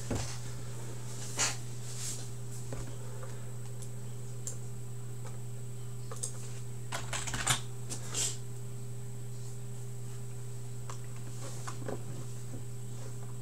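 Scattered short clicks and light taps, irregular and a few seconds apart, over a steady low hum.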